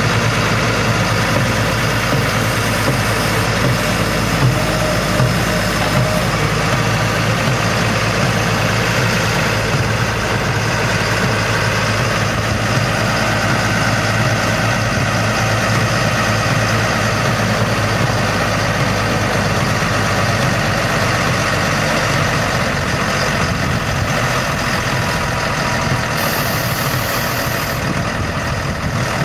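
Tractor-mounted PTH Stabicrusher rotor crushing stone in a gravel track, together with the tractor's diesel engine: a loud, steady mechanical running with no pause.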